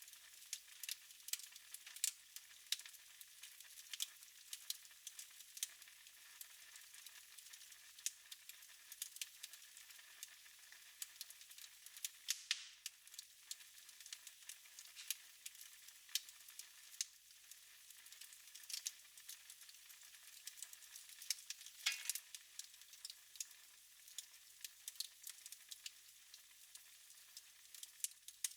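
Wood fire in a fireplace crackling, with irregular sharp pops over a faint hiss. Twice a short whistling hiss slides down in pitch.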